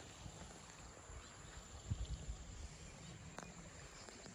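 Faint outdoor ambience: a low, uneven rumble, with a soft thump about two seconds in and a short sharp click a little over a second later.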